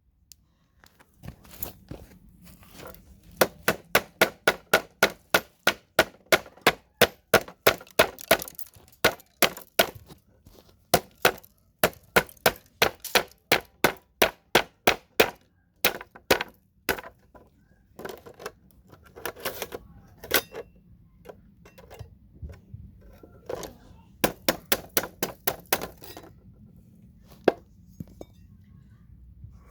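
A hammer striking a tool wedged under a motherboard's CPU socket to knock the socket off whole: sharp metallic clinks, about two a second, in runs broken by short pauses.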